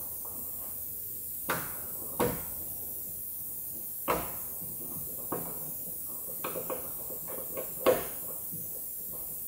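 Irregular metallic clicks and knocks of a hand tool working the bolts on a window regulator channel inside a steel truck door, about ten sharp ticks at uneven spacing, the loudest about eight seconds in.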